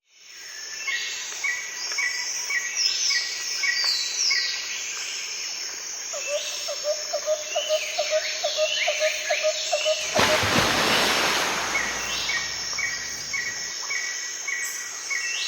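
Outdoor nature ambience of birds and insects calling: repeated short chirps about twice a second, falling whistled notes, and a run of quick lower notes from about six to nine seconds in. A burst of hiss comes in at about ten seconds and lasts a couple of seconds.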